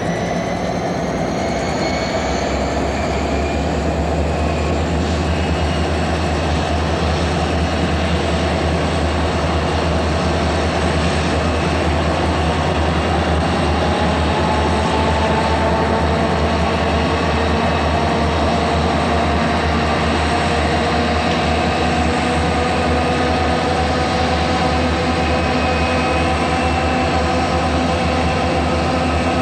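Southern Pacific four-unit diesel locomotive helper set rolling downgrade in dynamic braking: a loud steady drone with high whines that rise in pitch over the first few seconds as the dynamic brakes wind up, then hold steady, with another tone climbing slowly around the middle.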